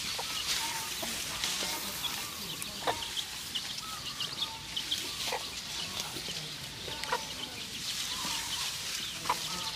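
Chickens clucking, with many short high chirps scattered throughout, over a steady hiss.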